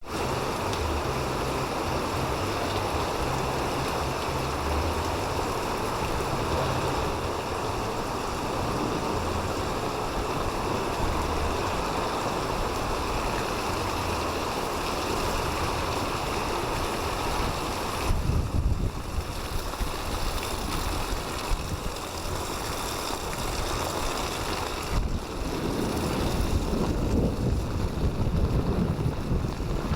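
Steady hiss of heavy rain falling, with low rumbles that come in about 18 seconds in and again in the last few seconds.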